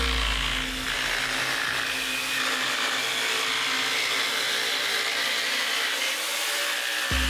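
A table-mounted jigsaw runs steadily, its thin blade cutting through a wooden board that is fed into it by hand.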